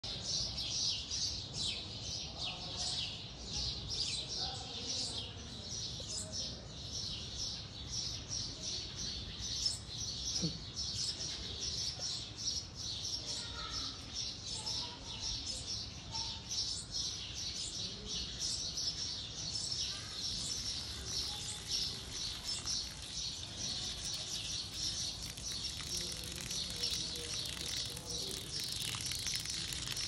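Birds chirping throughout, short high chirps several times a second. In the second half a steady hiss of sprayed water joins in.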